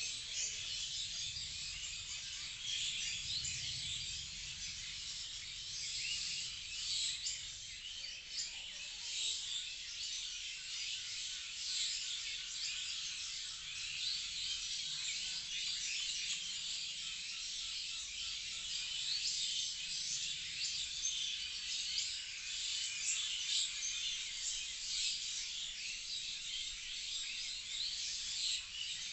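Many small birds chirping and singing at once in a dense, unbroken chorus of short, high chirps.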